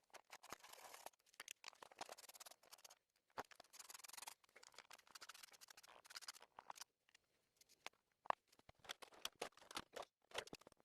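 Faint, quick clicks and scraping of hand tools, screws and plastic housing as the pull-start cover is taken off a Homelite Super 2 chainsaw, sped up.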